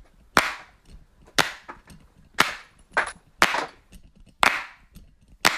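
Six sharp clap-like hits, evenly spaced about once a second, each with a short ringing tail.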